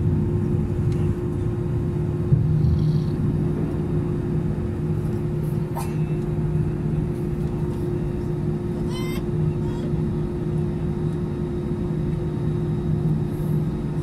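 Jet airliner cabin noise while taxiing: a steady engine drone and rumble heard from inside the cabin, even in level with no power change.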